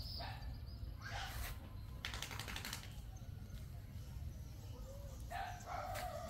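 Kitten mewing, a short cry about a second in and a longer one near the end, with a quick run of faint clicks in between.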